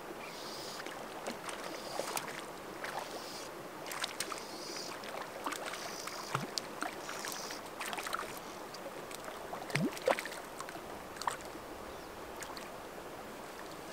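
Hooked brook trout splashing at the surface of shallow water as it is played in on a fly rod: a scattered run of small splashes and sharp ticks, with a couple of plunks about six and ten seconds in.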